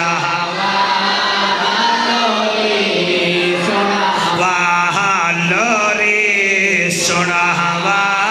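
A man's voice chanting a devotional Punjabi qaseeda into a microphone, singing long drawn-out phrases that waver in pitch.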